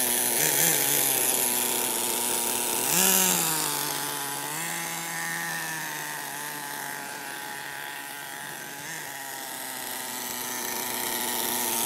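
Redcat Volcano S30 nitro RC truck's small two-stroke glow engine revving up about three seconds in as the truck pulls away, then buzzing steadily, fading as it moves off and growing louder again near the end. The engine is running rich, its high-speed needle not yet leaned out.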